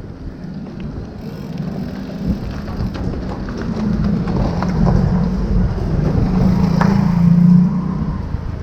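Wind buffeting the microphone of a riding cyclist's camera, mixed with rain and road noise and scattered small clicks. A low engine-like hum swells in the second half and fades near the end, as of a motor vehicle passing.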